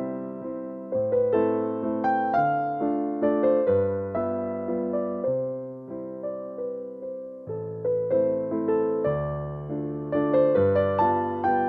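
Background music: a gentle piano melody over bass notes, each note struck and fading.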